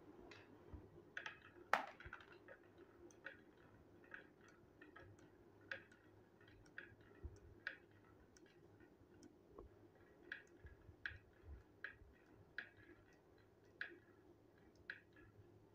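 Marbles clicking as they roll down a wavy groove in a wooden track and knock into the line of marbles queued against a shoe polish tin. Faint, separate sharp clicks about once or twice a second, the loudest about two seconds in.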